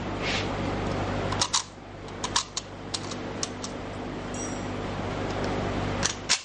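Metallic clicks and rattles of 7.62x39 rounds being thumbed from a stripper clip into the fixed magazine of a Yugoslavian M59/66 SKS rifle, a quick string of clicks in the middle, then two sharper clicks near the end.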